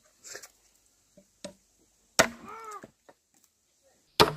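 Two sharp chops of a machete striking a wooden stump chopping block, about two seconds apart, with a few lighter knocks before them. Each chop is followed by a short rising-and-falling call.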